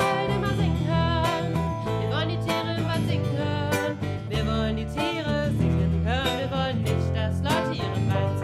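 Live children's song played on acoustic guitar and piano.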